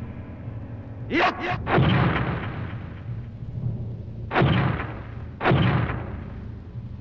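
Dubbed fight impact sound effects: a quick pair of sharp hits about a second in, then a heavy impact, and two more heavy impacts about a second apart later on, each with a short fading tail, over a steady low hum.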